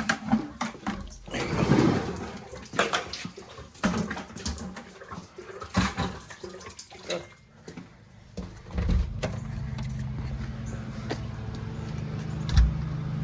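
Water draining and splashing from the boiler into a bucket, with scattered metal clanks of tools and fittings. A steady low hum starts about nine seconds in, and there is one sharp knock near the end.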